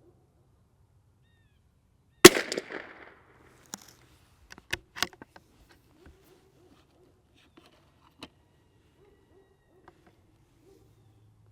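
A single .22 LR shot from a CZ 457 Varmint MTR bolt-action rifle about two seconds in, with a short echo. A few light metallic clicks follow over the next few seconds as the bolt is cycled.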